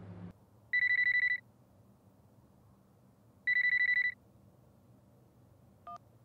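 Mobile phone ringing: two trilling rings, each under a second long, about three seconds apart, then a short electronic beep near the end.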